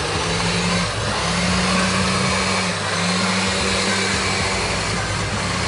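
Countertop blender running, puréeing a creamy jerk seasoning and white wine sauce until smooth; its motor hum dips briefly about a second in and again near the middle.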